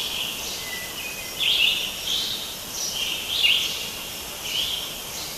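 Birds chirping outdoors in short, high-pitched bursts about once a second over a steady high background drone.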